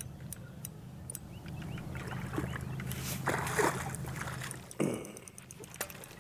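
Electric bow-mounted trolling motor humming steadily. Water splashes about three seconds in as a hooked channel catfish is fought at the boat. Near the end the hum stops with a knock.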